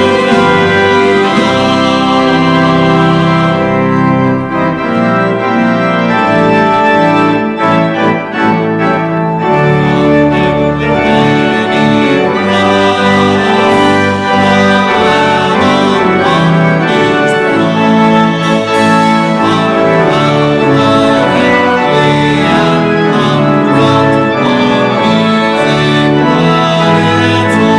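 Church organ playing a hymn in held chords that change every second or so.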